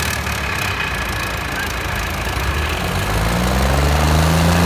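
Diesel engines of a John Deere 5310 and a Sonalika 60 tractor, hitched back to back for a tug-of-war. They run steadily, then rev up about three seconds in as the pull begins under heavy load.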